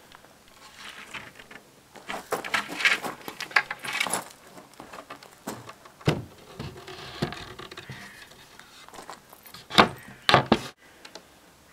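Melamine-faced chipboard panels being handled and set against each other, with irregular scraping and light knocks, then two sharp knocks near the end.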